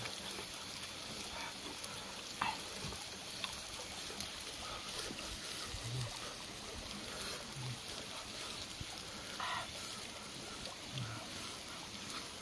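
Shallow rocky stream trickling steadily, with a few short low hums and faint clicks from a person eating.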